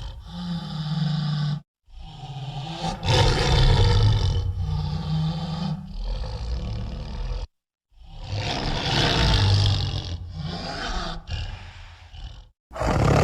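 Leopard bull terrier creature sound effect: low growls and roars in three main takes, each cut off abruptly into dead silence, with a fourth starting near the end.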